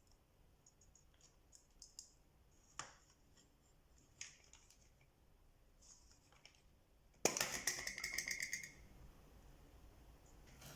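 Small hard objects being handled, with scattered light clicks and taps. A little past halfway comes a loud rapid rattle of clicks lasting about a second and a half.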